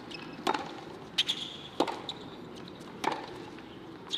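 Tennis rally on a hard court: five sharp knocks of racquet strings striking the ball and the ball bouncing, spaced roughly a second apart.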